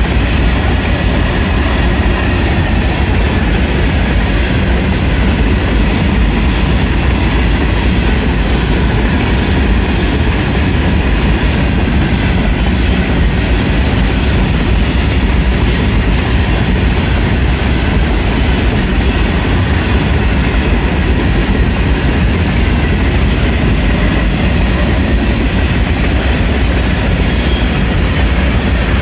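Freight cars of a grain train rolling past a grade crossing at speed: a steady, loud rumble of steel wheels on the rails.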